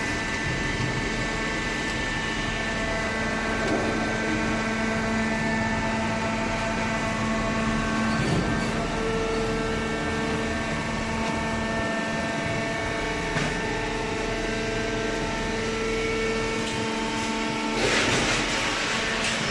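Horizontal hydraulic cardboard baler running: a steady machine hum with a whine of several held tones from its hydraulic power unit, with a louder burst of hiss near the end.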